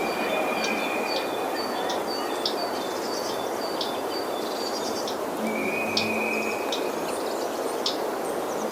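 Small birds chirping in short repeated calls over a steady rushing background noise, with two longer whistled notes, one at the start and one about halfway.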